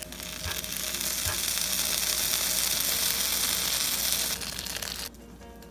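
Crescent-roll pizza waffle sizzling inside a closed Dash mini waffle maker: a steady hiss that stops suddenly near the end, with two faint clicks in the first second and a half.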